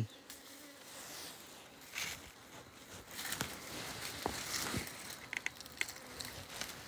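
Footsteps and rustling through long grass, then small clicks and scrapes about five seconds in as fingers grip the lid of a wooden beehive.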